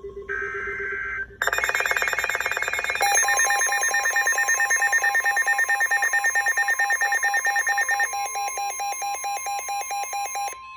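Emergency Alert System broadcast tones. A short burst of screechy data tones comes first. About a second and a half in, a loud, rapidly pulsing electronic alert tone starts, and about three seconds in a steady high warning tone joins it. The tones cut off just before the end. This is the header and attention signal that open an emergency alert.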